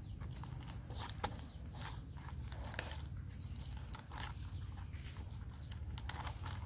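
Scattered small clicks and taps of plastic toy pieces as a child's hand rummages in a plastic tub, over a steady low hum.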